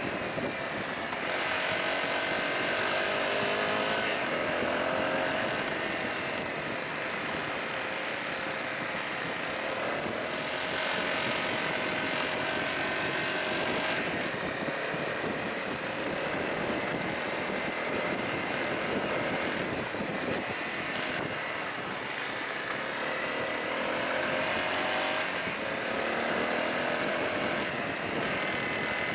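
Honda CRF250L's single-cylinder four-stroke engine running on a gravel road, its pitch climbing and dropping several times as the rider accelerates and shifts, over a steady rush of wind and road noise.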